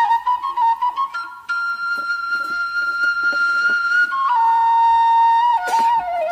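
Background music: a flute playing a slow melody of long held notes, one held for over two seconds in the middle, dropping to a lower note near the end.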